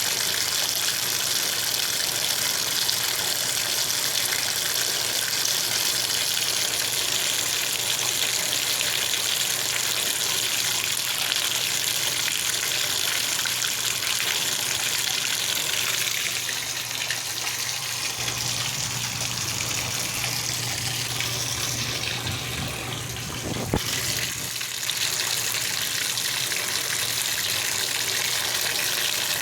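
Water running steadily from a tap at low pressure, a steady hiss. About two-thirds of the way through the flow weakens, a low hum comes in, and there is a single click before the hiss returns to full strength.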